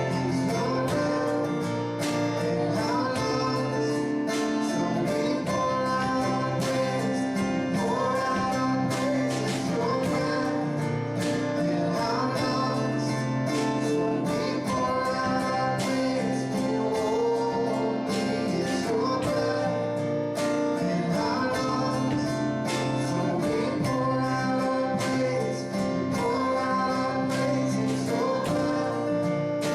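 Worship music led by guitar, with singing.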